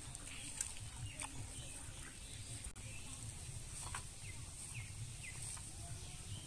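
Rural field ambience: a steady high insect buzz with scattered short bird chirps over a low rumble, and one sharp click about half a second in.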